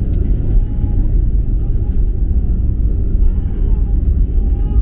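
Cabin noise of an airliner rolling along the runway after touchdown: a steady low rumble of engines and wheels heard from inside the cabin, with faint voices under it.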